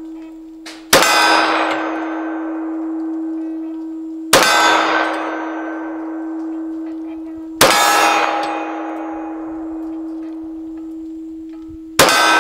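Four shots from a Glock 23 fitted with its .40 barrel strike a steel silhouette target about three seconds apart. Each sharp crack is followed by the plate ringing with a long metallic tone that carries on between shots.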